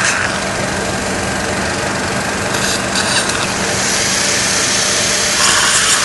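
Surgical implant handpiece spinning a disc cutter through jawbone, cutting the vertical slot of a basal implant osteotomy: a steady grinding whir.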